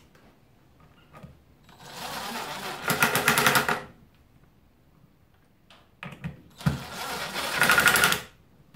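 Ozito cordless impact driver driving two screws through a wooden bearing flange into a plywood wheel. Each time the motor spins up briefly, then breaks into a fast, even hammering rattle as the screw seats, about a second after the start and again near six seconds in.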